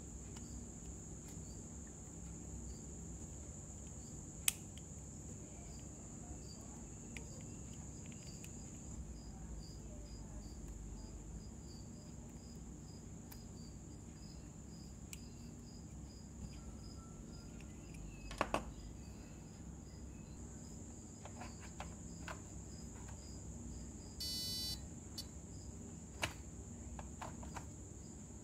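A faint, steady high-pitched trill that pulses about twice a second, with a few small clicks as fingers handle a small electronics circuit board. A short electronic beep sounds near the end.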